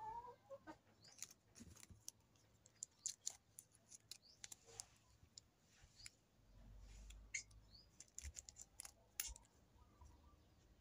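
Faint crinkling and scattered small clicks of folded ribbon and banana-leaf pieces being handled and pressed together by hand.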